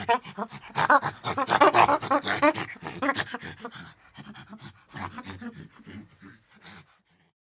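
Monkey calling in a rapid series of short pitched calls, loudest in the first three seconds and coming again more softly about five seconds in, then stopping.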